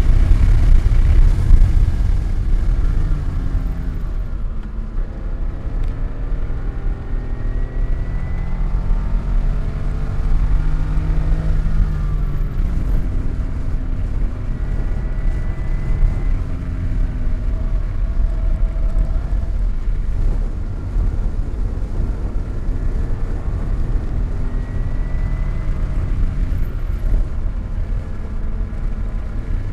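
Car engine driven hard, its pitch climbing and dropping again and again as it accelerates and backs off, over a heavy low rumble.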